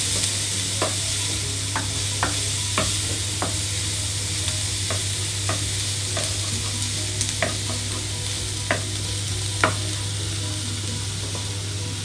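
Chopped onions and ginger-garlic paste sizzling in a little oil in a frying pan, stirred with a wooden spatula that knocks and scrapes against the pan every second or so. A steady low hum runs underneath.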